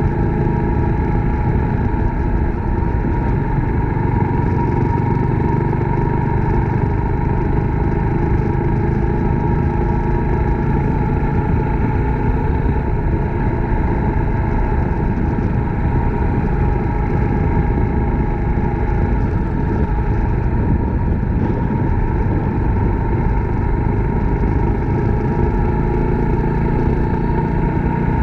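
Suzuki Grasstracker Big Boy's single-cylinder four-stroke engine running steadily as the motorcycle is ridden at an even speed.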